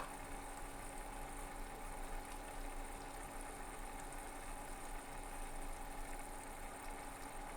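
Steady low hum of computer equipment running, with a few faint constant tones over an even background noise.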